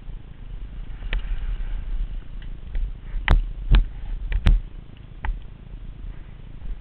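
Mountain bike rolling fast down a loose gravel dirt trail: a steady low rumble of tyres on the ground, broken by sharp knocks and rattles of the bike over bumps, the loudest three coming between about three and four and a half seconds in.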